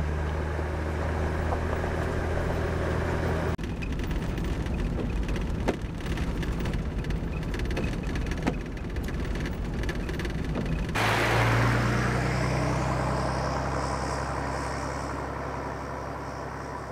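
A 4WD driving on a gravel road: the engine runs steadily under the rumble of tyres on gravel, with a few sharp knocks in the middle. About eleven seconds in, the vehicle is heard from outside as it drives away, its engine and tyre noise fading slowly.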